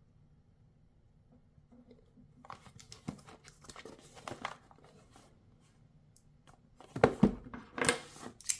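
Knife box packaging being handled and opened: soft crinkling and rustling, then a louder bump and rustling scrapes near the end.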